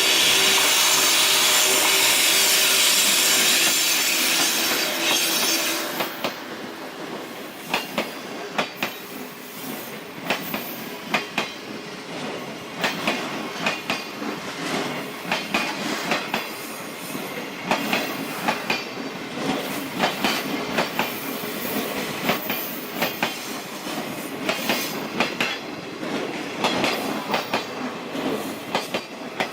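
A locomotive-hauled sleeper train passing on jointed track. For the first six seconds there is a loud, steady, high-pitched hiss and squeal. After that the coaches' wheels clatter over the rail joints in a regular clickety-clack, mixed with wind noise.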